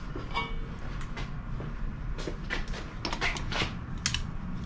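Short clicks, scrapes and knocks of a hand tool being worked against the rubber hangers and metal mounts of a car's muffler to pop the hangers off, over a steady low hum.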